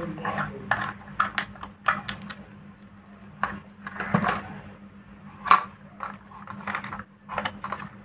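Irregular clicks, taps and light scrapes of wires and small switch parts being handled on a metal mounting plate, with one sharper click about five and a half seconds in, over a steady low hum.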